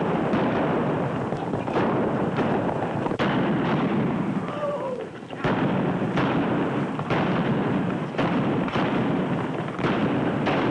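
Revolver gunfire in a mounted gunfight: a dozen or so shots at irregular intervals over the steady drumming of galloping horses' hooves, with a brief lull about halfway through.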